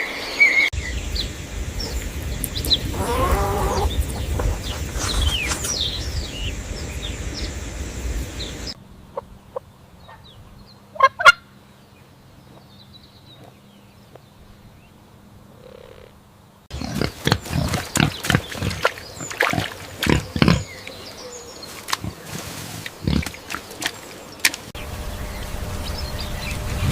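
Several short farm-animal recordings cut one after another: calls over a low hum, then a quiet stretch with one loud call, then a quick run of short, sharp calls, then another hummy recording near the end.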